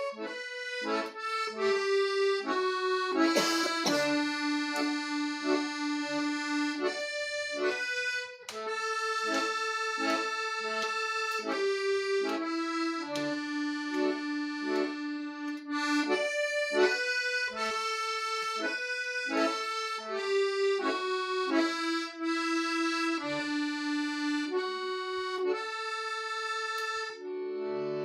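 Hohner piano accordion being played: a melody of held notes, each changing to the next about once or twice a second.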